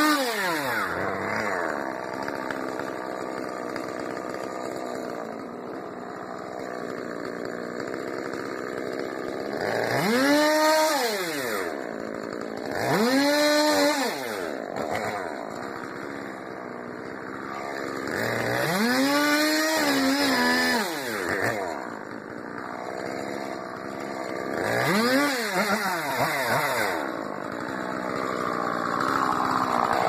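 Two-stroke chainsaw dropping from full revs to idle as a cut ends, then idling with four short throttle blips, each rising and falling in pitch.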